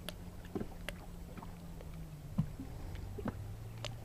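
Low steady motor hum from a small fishing boat, dropping slightly in pitch about three seconds in, with scattered light clicks and knocks.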